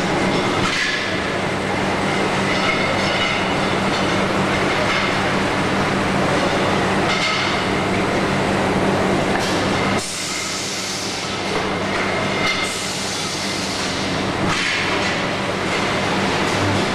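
Motorcycle wheel rim roll forming machine running, its forming rolls working a metal strip: a loud, steady mechanical hum with metallic rattle and a high whine that comes and goes. The level drops slightly about ten seconds in.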